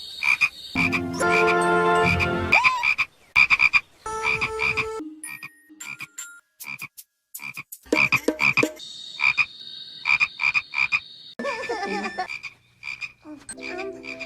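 Hollywood Edge single frog croak sound effect: a short frog croak repeated many times in quick, irregular succession.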